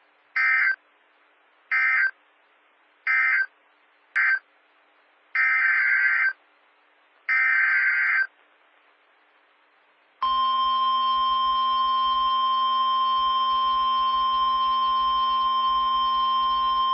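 Emergency Alert System SAME digital data bursts: six short, buzzy, warbling bursts about a second apart, the end-of-message code of one alert followed by the header code of the next. About ten seconds in, a loud, steady, single-pitched warning alarm tone starts and holds, the NOAA Weather Radio alert tone that precedes a broadcast warning.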